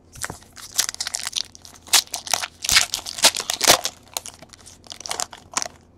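Foil wrapper of a 2017 Panini Unparalleled football card pack being torn open and crinkled by hand: a dense run of crackling crinkles that stops shortly before the end.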